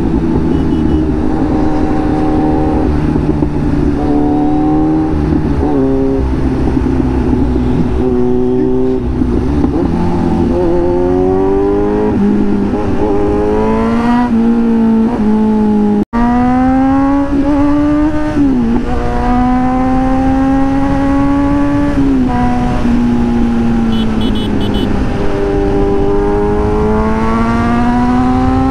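Kawasaki Z900's inline-four engine through an SC Project aftermarket exhaust, heard from the rider's seat under hard acceleration through the gears. The pitch climbs, then drops back at each of several upshifts, over a steady rush of wind. The sound cuts out for an instant about sixteen seconds in.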